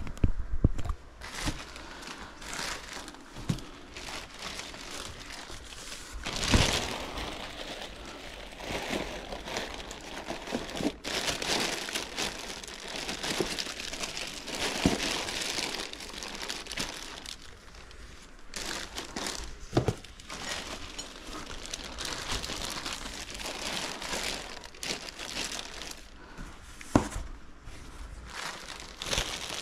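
Plastic packing wrap crinkling and rustling as it is wrapped and tucked around a model airplane, with a few sharper knocks along the way.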